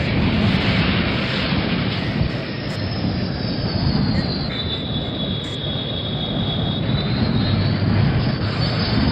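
Aircraft engine running loudly, a rumbling roar with a high turbine whine that drops in pitch about halfway through and rises again near the end.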